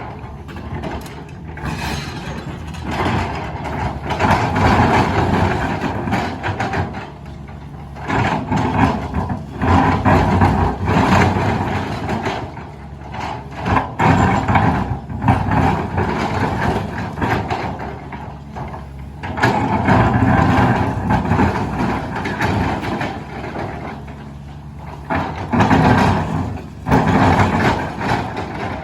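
Cat 320D excavator's diesel engine working under load, rising and falling in surges every few seconds, with the bucket teeth scraping and knocking against rock.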